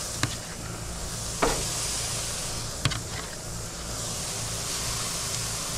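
Thick pork chops sizzling on gas grill grates, a steady hiss, with three short sharp clicks of metal tongs as the chops are moved over.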